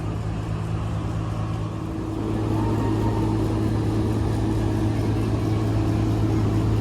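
Steady hum of an engine running, with a second steady tone joining and the sound growing a little louder about two and a half seconds in.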